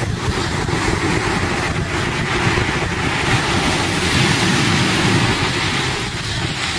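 Ocean surf breaking and washing up the shore, with wind rumbling on the microphone; the wash grows a little louder through the middle.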